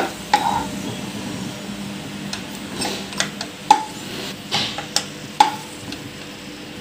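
Spatula scraping and tapping on a nonstick pan and a small steel bowl while fried cashews and raisins are scooped out of the ghee: a series of irregular clinks and scrapes, a few of them ringing briefly.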